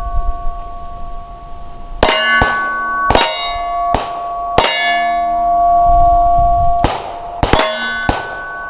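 About ten pistol shots in an uneven string from a Glock 21 in .45 ACP. The steel targets ring with clear metallic tones after the hits, and the ringing carries on between the shots.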